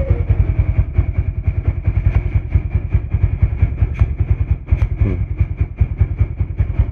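Honda Vario 125 scooter's single-cylinder engine idling with a fast, even putter, and a thin steady high whine above it.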